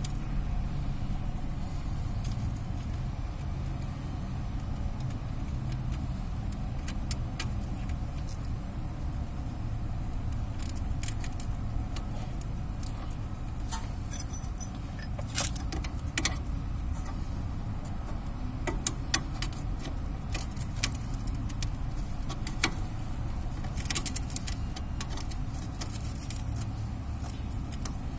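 Scattered metallic clinks and ticks of a wrench and bolts on the mounting of a new ball joint in a VAZ-2107 front suspension, mostly in the second half, over a steady low hum.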